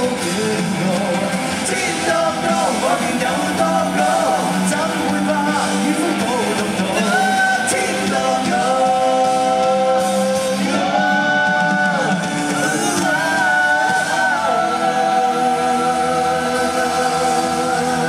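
Live Cantopop rock band playing, with a singer holding long notes over the band from about seven seconds in.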